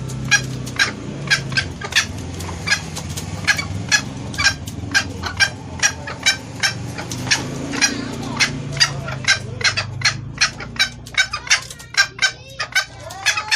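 Female junglefowl giving a rapid series of short, sharp clucking calls, about two to three a second, over a low steady rumble. This is the hen's call to males, used as a lure sound to draw in cocks.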